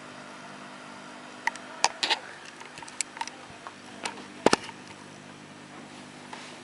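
Guitar amplifier idling with a steady mains hum and hiss, broken by a handful of sharp clicks and knocks from handling the rig, the loudest a double knock about four and a half seconds in.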